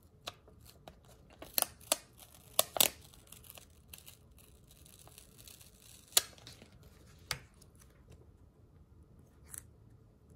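Paper sticker sheets being handled and stickers peeled off their backing: a scattering of short, crisp paper clicks and crackles, the loudest in a cluster about two to three seconds in and another about six seconds in.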